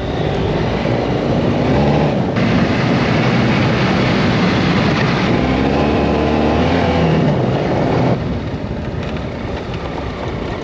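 BMW F800GS parallel-twin engine running under way, over a steady rush of wind and road noise; the engine note rises and falls twice, and the sound gets quieter about eight seconds in.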